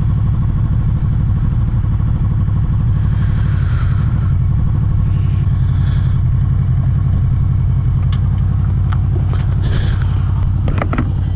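Honda VFR800F's 782 cc V4 engine running steadily at low revs, with no revving.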